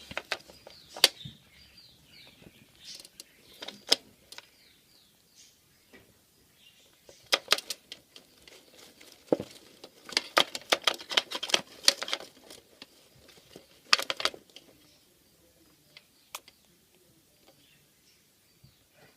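Baby budgerigars stirring in their nest: irregular scratching, clicking and rustling in bursts, with faint high peeping chirps in the first few seconds.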